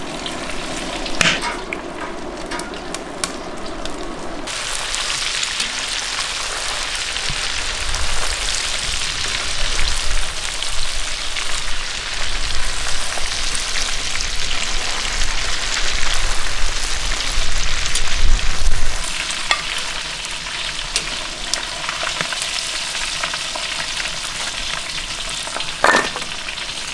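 Breaded chicken nuggets deep-frying in hot sunflower oil in a cast-iron cauldron: a steady, loud sizzle, with a slotted metal skimmer stirring through the oil at the start. The sizzle grows fuller and brighter about four seconds in.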